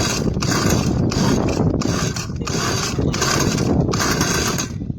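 Small two-cylinder two-stroke engine of an RC long-tail boat being started. The mechanical noise comes in uneven bursts with short breaks, about twice a second, as the engine is cranked and tries to catch.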